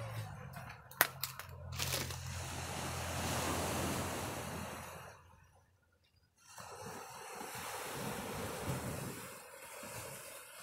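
Small waves washing onto a sandy beach, a steady rush mixed with wind on the microphone, swelling about three seconds in and dropping out briefly about halfway through. A sharp click sounds about a second in.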